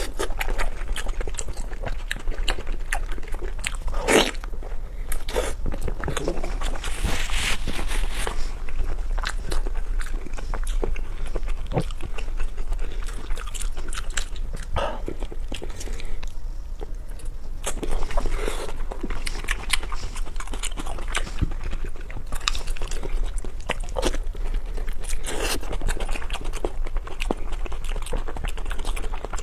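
Close-miked eating: repeated biting and crunching with wet chewing, in irregular bites, over a faint steady low hum.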